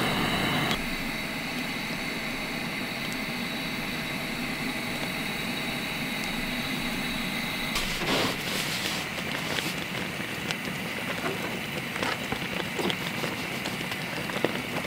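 Steady hiss of a Coleman Classic propane camp stove burner under a pot of boiling chicken and dumplings, with a few light clicks of a spoon stirring the pot near the end.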